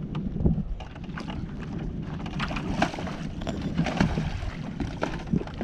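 Wind rumbling on the microphone, with scattered sharp clicks and knocks from hands working the launch cart's winch and fittings, busiest in the middle.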